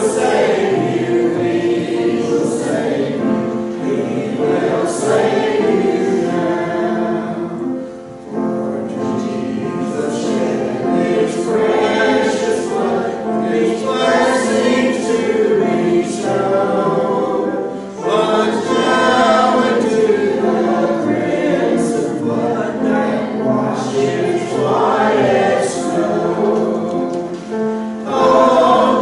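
Congregation singing a hymn together, with brief dips between lines about eight and eighteen seconds in.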